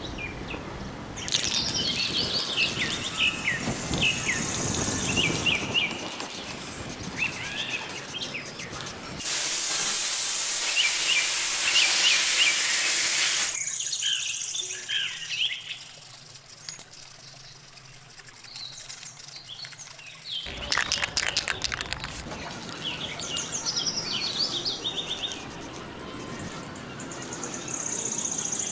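Birds chirping and singing outdoors throughout. Near the middle, an aerosol spray paint can sprays in a steady hiss for about four seconds.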